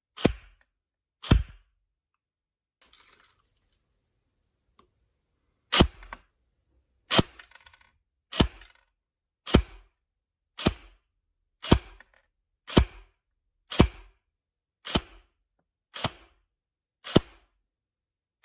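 S&T ST316 G36 airsoft electric gun with its stock M100 spring firing single shots through a chronograph, each a sharp crack of the gearbox cycling. Two shots come first, then a pause of about four seconds, then eleven shots evenly spaced about one a second.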